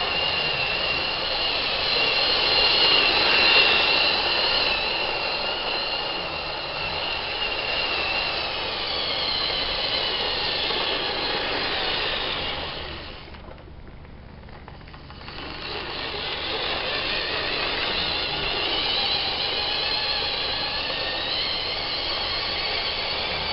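Lima O-gauge model train running round a loop of track: a high whine from the locomotive's small electric motor over the rumble of wheels on rail. It swells and fades as the train moves round the circuit, and drops away for about two seconds midway.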